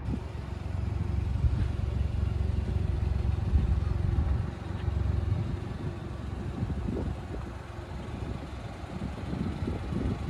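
Suzuki Jimny JB23's 660 cc turbocharged three-cylinder engine idling: a steady low rumble, a little louder in the first half.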